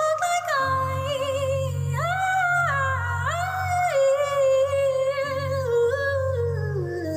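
A woman singing long wordless notes, with slides between pitches and the melody stepping downward near the end, over a low steady accompaniment.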